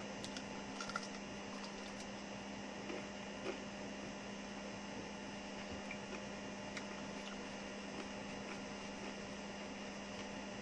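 Steady low electrical hum with background hiss, and a few faint clicks and taps in the first few seconds.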